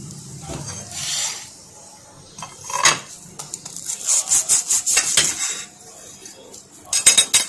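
Kitchen knife sawing back and forth through a toasted burger bun, in quick runs of rasping strokes about midway and again near the end, with the blade knocking against the glass plate.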